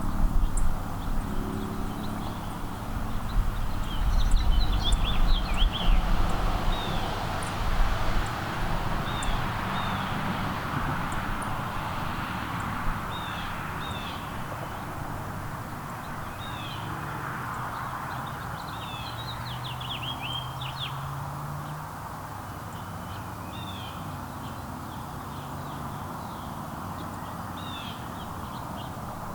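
Small songbirds giving short, quick chirps again and again over a steady background hiss. A low rumble is loudest in the first several seconds and then fades away.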